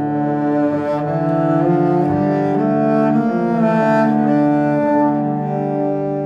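Background music led by bowed strings, playing slow sustained notes that change about once a second.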